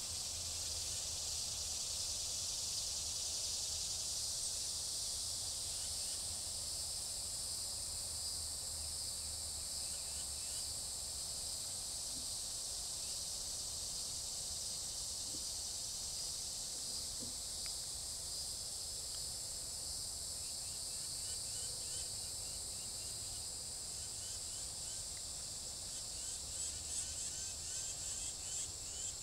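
Steady high-pitched buzzing chorus of insects in the woods, with a low hum beneath. Near the end, a rapid series of short repeated chirps joins in.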